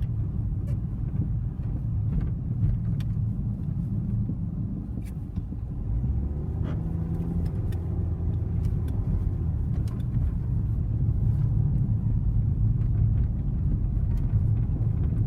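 A car's steady low rumble, with scattered faint clicks over it.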